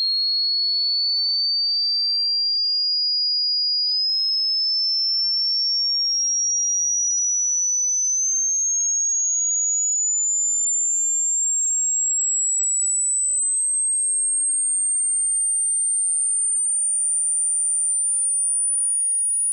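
Hearing-test sine tone, a single pure high whistle, sweeping slowly upward in pitch in small steps from high to very high at a steady loudness.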